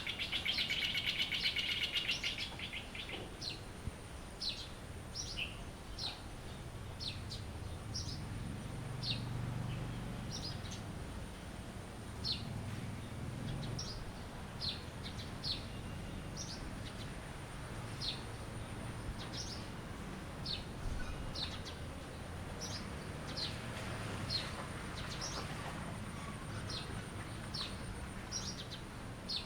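Songbirds chirping: a loud, rapid buzzy trill for the first two seconds, then short high chirps repeated about once a second, over a faint low background rumble.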